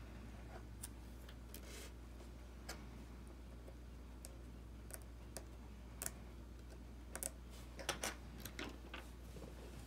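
Scattered light clicks and taps from fingers pressing and handling the small parts of an iPhone 6s front-camera and earpiece assembly, busiest and loudest around seven to eight seconds in, over a steady low hum.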